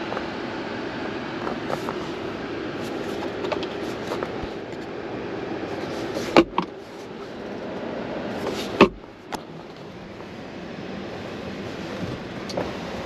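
Two sharp clacks inside an SUV's cabin, about six and a half and nine seconds in, each followed by a smaller knock, from the center console armrest lid and interior trim being handled, over a steady hiss.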